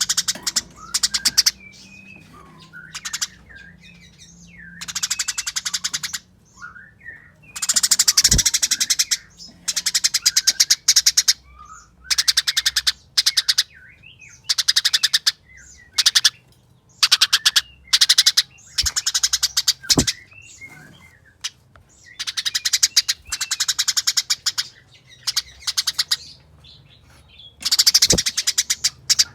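Eurasian tree sparrows in fighting mode, giving rapid, dense chattering bursts of fast chips, each about a second long, repeated every couple of seconds. Softer chirps and short gliding notes fill the gaps between bursts.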